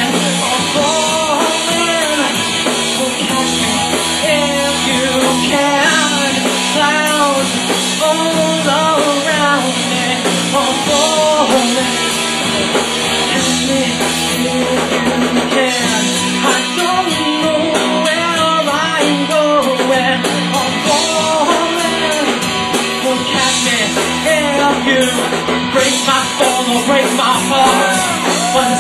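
A live rock band playing: drum kit, electric guitars and bass, with a wavering lead melody line over the top.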